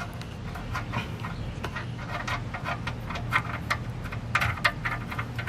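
Tool work on the oil drain plug under the truck: scattered sharp clicks and light ticks, irregular and bunched near the end, over a steady low hum.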